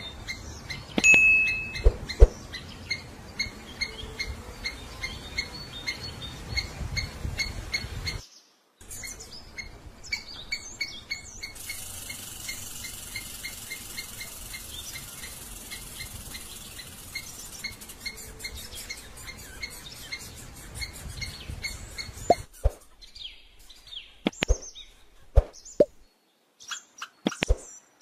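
Squirrel calling in a long run of short, evenly spaced high chirps, broken by a brief gap about eight seconds in. Near the end the chirps give way to scattered sharp clicks and taps.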